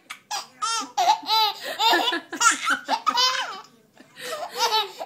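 A baby laughing in a run of short, high-pitched bursts, pausing briefly about four seconds in before starting again.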